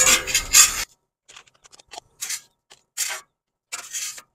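Metal spatula scraping across a steel flat-top griddle, scooping up grilled potato slices: one longer scrape at the start, then several short strokes about a second apart.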